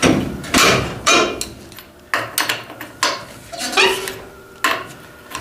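Hard metal knocks with a short ringing after each, about eight irregularly spaced strikes, as a tool works against the rusted, frozen wheel lug nuts of a 1966 Ford F-100.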